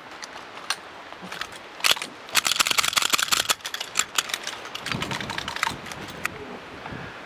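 A line of shooters unloading their handguns: many overlapping metallic clicks and clacks of pistol handling, thickest in a rapid flurry a couple of seconds in.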